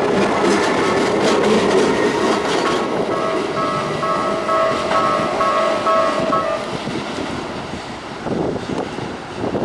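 Keisei 3400 series electric train running over a level crossing, its wheels clacking over the rail joints. The crossing's warning bell rings in a pulsing tone from about three seconds in and stops at about six and a half seconds, and the train noise then dies away.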